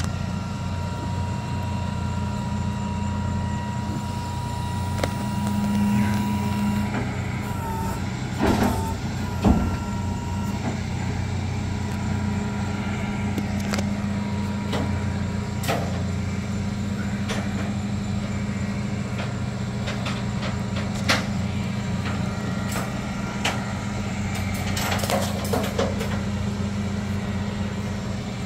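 Tow truck engine idling steadily, with a few sharp metallic knocks about eight and nine seconds in and again near twenty-one seconds.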